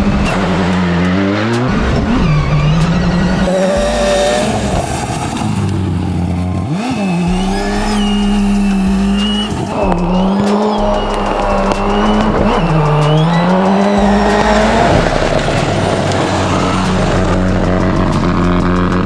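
Ford Escort Cosworth 'Cossie V2' rally car's engine revving hard through a gravel course run. The pitch climbs and falls again and again as the driver shifts and lifts for the turns, with a few sharp drops and pickups.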